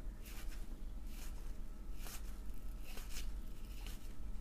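Cardboard trading cards being slid and flicked through the hands one after another: soft papery swishes and light snaps at an irregular pace, over a faint steady low hum.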